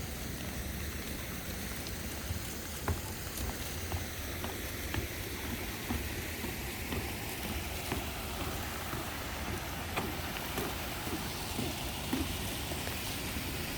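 Steady rain falling, with scattered drops ticking close by, over the rush of water in a rain-swollen plaza stream.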